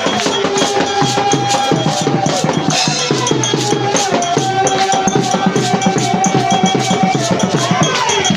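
Live band music with fast, busy drums and shaken percussion under a held melody line that slides between notes.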